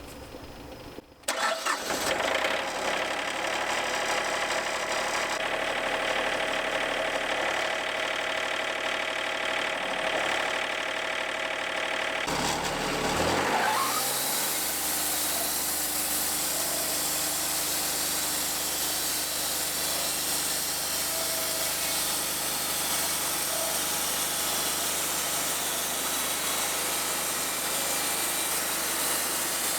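Wood-Mizer portable band sawmill starting up and running: its engine catches about a second and a half in and runs with a steady note, then about thirteen seconds in the pitch sweeps down and the mill settles into a steady, hissier run.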